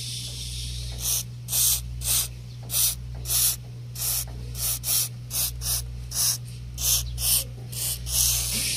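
Aerosol penetrating lubricant sprayed through a straw nozzle onto a rusted, sticky front grille lock. It hisses briefly at first, then comes in short squirts about two a second.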